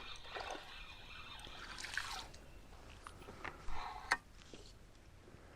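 Faint water splashing and dripping from a hooked rock bass being played and lifted at the surface, with a few sharp clicks.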